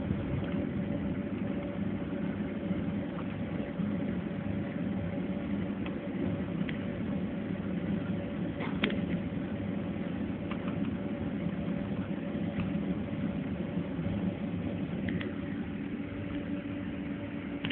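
Steady airliner cabin noise: the jet engines and cabin air running evenly with a constant hum, and a few faint clicks.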